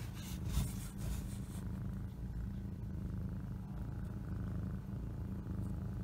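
Cat purring steadily in a continuous low rumble, from a mother cat nursing her week-old kittens.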